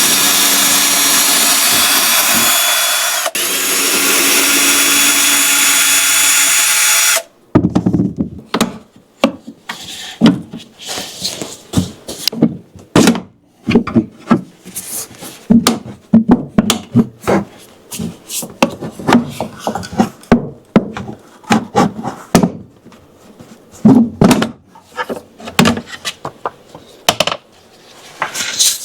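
Power drill running steadily for about seven seconds, driving out the screws that hold an access plate, with a brief dip about three seconds in. It then stops, followed by scattered clicks and knocks of screws, tools and the plate being handled.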